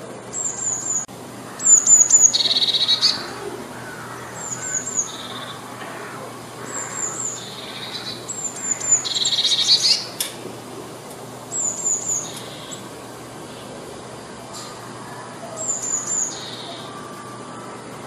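Eurasian blue tit singing: about seven phrases a second or two apart, each a few short high notes followed by a lower trill.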